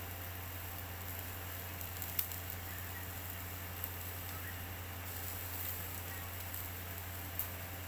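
Beef satay skewers sizzling over a charcoal grill, with a steady low hum underneath and a few sharp clicks, the loudest about two seconds in.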